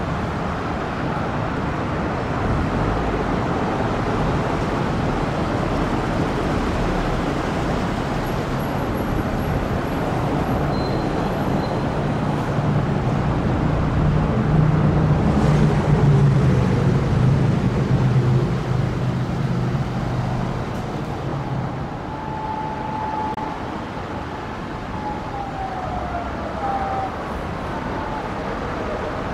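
Road traffic noise with a vehicle's engine hum swelling and passing in the middle. Near the end a Japanese police patrol car's siren wails faintly in the distance, approaching on an emergency run.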